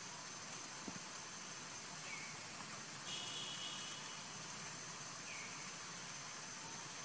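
Quiet outdoor ambience: an even background hiss with a steady high-pitched insect-like tone, a short buzz about three seconds in, and two faint chirps.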